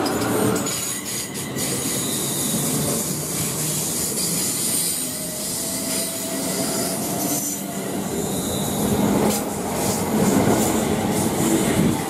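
Two coupled Class 350 Desiro electric multiple units running past along the platform: a steady rumble of wheels on rail with a high wheel squeal and whine, and scattered clicks as the wheels cross rail joints.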